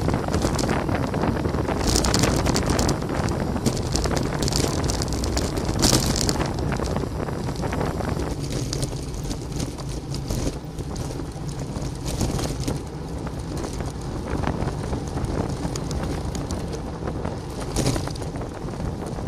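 Wind buffeting the microphone of a camera mounted on a moving road bicycle, a steady rushing noise with a few brief hissier gusts.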